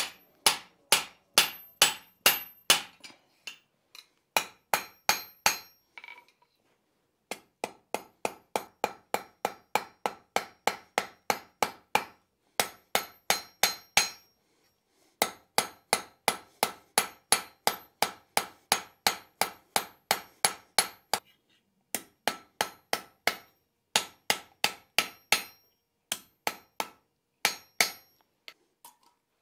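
Hand hammer striking hot steel bar stock on a steel anvil, about two to three blows a second in runs broken by short pauses. Each blow rings with a bright metallic tone. In the first few seconds the blows fall on the top of a guillotine tool holding the bar.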